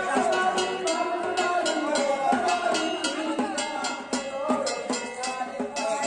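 Live folk music: a man singing through a microphone over a steady, quick percussion beat with a bright, clanking, bell-like strike.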